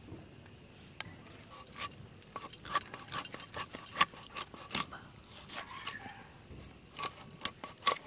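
Scaling a piece of bhetki fish on a bonti blade: the fish skin is scraped against the upright blade in quick, irregular scrapes and clicks, the loudest about halfway through.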